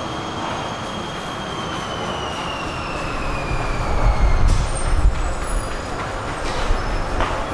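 Metro train braking as it comes into the station: a high motor whine falls slowly in pitch, then from about halfway a heavier low rumble of the wheels builds, with brief high squeaks.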